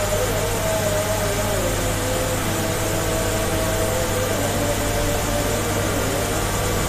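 Steady rush of churned pond water over a constant low electric hum, typical of a prawn pond's paddlewheel aerator running. Faint wavering tones drift over it.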